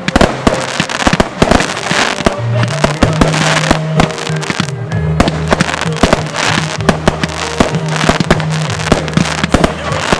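Fireworks display: aerial shells bursting in many sharp bangs and crackles in quick succession, over background music.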